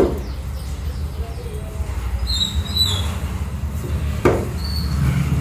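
Meat cleaver chopping raw chicken on a wooden stump block: two sharp chops, one at the start and one about four seconds in, over a steady low hum. A brief high-pitched squeak sounds about halfway through.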